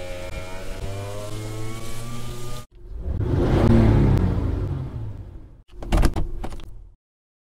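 Car sound effects in sequence. First a car engine runs and revs up a little, then cuts off suddenly. Next a car passes by, growing loud and then fading as its pitch drops. Last comes a short clatter of sharp knocks.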